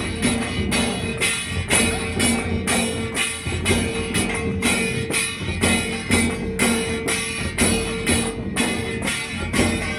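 Dhol drums beaten in a steady, driving rhythm of a few strokes a second, each stroke carrying a bright metallic jingle, over a steady held note.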